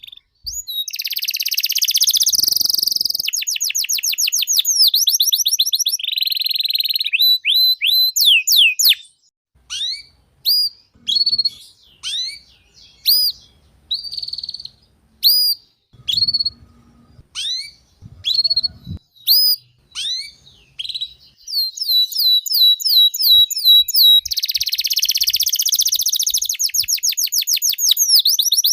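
Domestic canary singing: long rolling trills and fast runs of repeated notes, breaking about a third of the way in into single short rising chirps about a second apart, then returning to rapid trills near the end.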